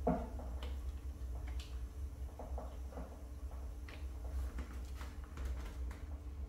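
Light scattered clicks and taps of small pottery trimming tools being handled at the wheel, with a soft knock right at the start, over a steady low hum.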